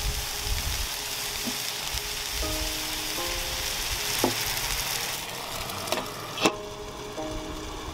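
Gyoza sizzling and bubbling in a hot frying pan with the batter for the crispy skirt added. About six and a half seconds in, a glass lid clinks down onto the pan and the sizzle turns muffled.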